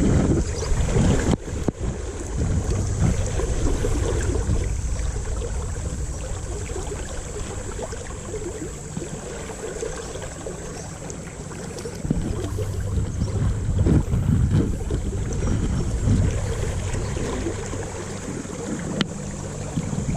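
Wind buffeting the microphone over moving river water, a low, uneven rumble that swells and eases, with a couple of short clicks.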